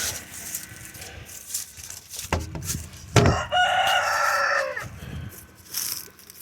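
Rooster crowing once, about three seconds in, a single call of about a second and a half that falls slightly at the end, preceded by a couple of sharp knocks.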